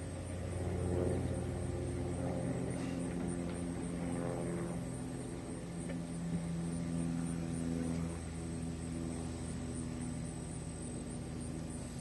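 Distant engine drone, steady with its pitch shifting slowly, over a constant high insect trill.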